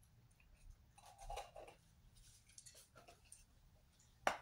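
Faint handling noises of a plastic dog-treat packet: scattered small clicks and rustles, a short rustle a little after a second in, and one sharp click near the end.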